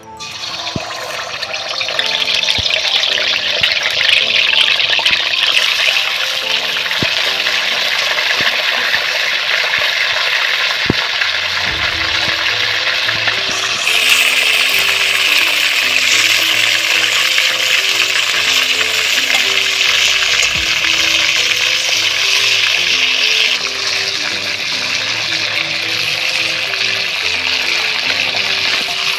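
Chicken pieces frying in hot oil in a cast-iron karahi: a steady loud sizzle that builds over the first couple of seconds as the pieces go in and steps louder about halfway through.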